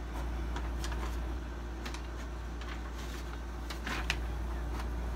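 Scattered light clicks and rustles of hands handling paper and small things on a desk, over a steady low hum, with a sharper click about four seconds in.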